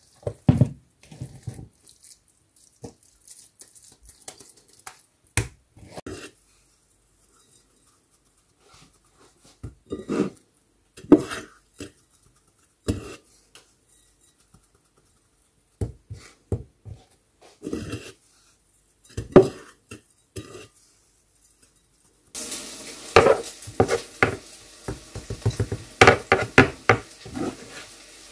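Wet hands patting and slapping minced fish into cutlets, in short irregular clusters with brief quiet gaps, and now and then a knock against a plastic bowl. About 22 seconds in, a steady hiss starts under faster, denser patting.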